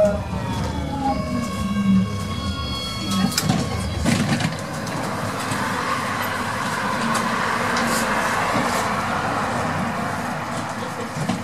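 GTO-thyristor traction electronics of an AEG GT8N tram whining in several falling tones as the tram brakes to a halt, with a couple of knocks about three to four seconds in. Then a steady hiss while the tram stands.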